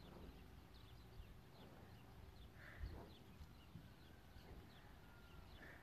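Near silence outdoors: small birds chirping faintly over a low rumble, with one soft bump near the middle.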